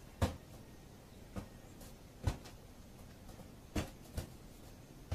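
Dull thumps of a rubber balloon being batted back and forth between a person's hands and a cat's paws, about five hits at uneven intervals.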